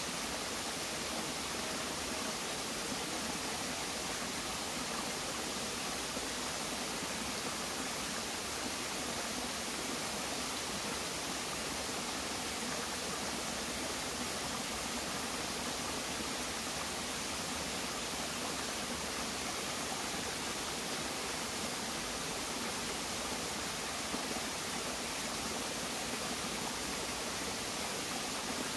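Small forest stream running over rocks and trickling down little cascades, a steady rush of water.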